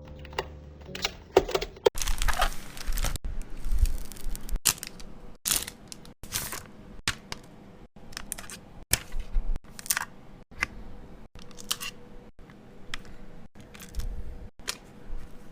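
Packaging being opened and handled up close: a run of short paper and plastic tearing, rustling and crinkling sounds, broken by frequent brief gaps.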